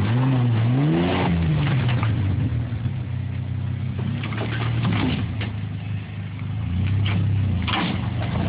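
Pickup truck engine working over off-road terrain: it revs up and back down in the first second or so, then runs at a steady drone with a brief dip about six seconds in. Scattered short knocks sound throughout.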